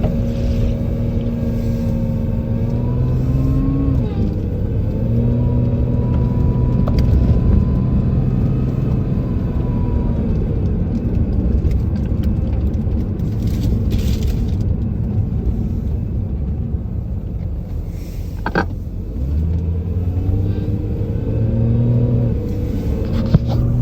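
Car driving under acceleration and deceleration, its engine note rising and falling, with a thin whine above it that sounds similar to an angle grinder. About three quarters of the way through, a brief sharp squeal sweeps upward.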